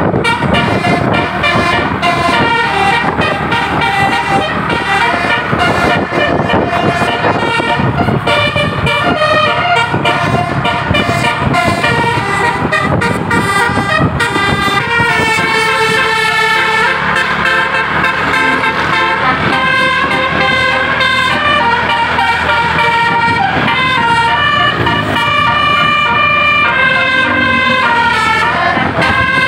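Basuri musical air horn playing a continuous melody of stepped, held notes, one after another, over a steady low noise underneath.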